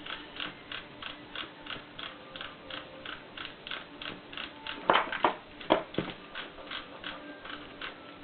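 Steady, even ticking, about three to four ticks a second. A few louder sharp clicks come in the middle, from small metal parts of the jigsaw being handled.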